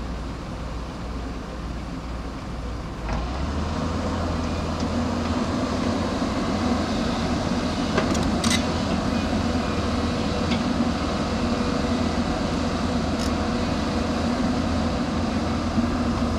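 Hyundai 215L Smart crawler excavator's diesel engine running steadily; about three seconds in the engine speed steps up and stays up as the arm is worked. A few short clicks come near the middle.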